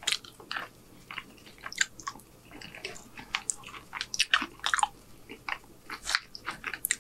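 Close-miked chewing of soft food: irregular wet mouth smacks and clicks.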